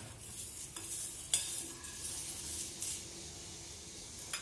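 A spoon stirring carom seeds and garlic peels dry-roasting in a hot kadhai on a low flame, with a few sharp clicks of the spoon on the pan over a faint steady sizzle.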